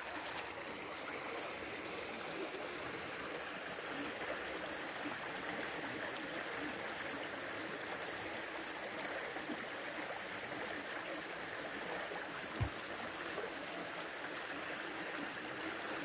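Shallow creek running steadily over stones, a continuous rushing of water.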